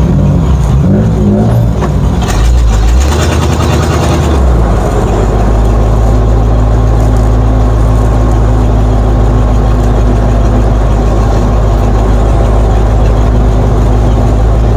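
1950 Ford F1's flathead V8 running as the truck drives slowly. About two seconds in, a rush of noise lasts a couple of seconds while the engine note shifts, then the engine settles into a steady low drone.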